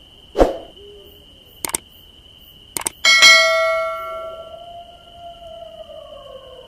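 Subscribe-button sound effects: two quick mouse clicks, then a notification bell strikes once and rings out, fading into a tone that slowly slides down. A single thump comes just before the clicks, and a steady high tone runs underneath.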